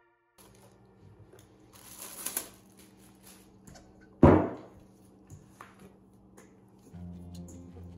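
Cloth tea towel rustling as it is pulled off a stainless steel mixing bowl, then one loud thud about four seconds in as the bowl is lifted and turned over onto the pastry mat, with small knocks and taps of handling.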